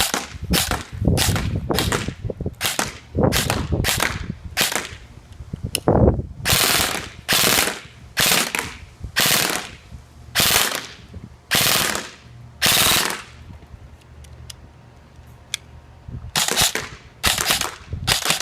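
Krytac LVOA airsoft electric rifle (AEG) firing short full-auto bursts, each a quick rattle lasting a fraction of a second, at a high rate of fire. The bursts come in close succession, stop for about three seconds two-thirds of the way in, then resume near the end.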